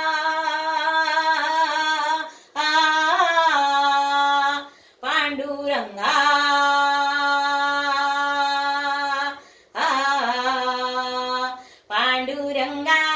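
An elderly woman singing a Marathi devotional bhajan to Panduranga (Vitthal) unaccompanied, drawing out long held notes in several phrases with short breaks for breath between them.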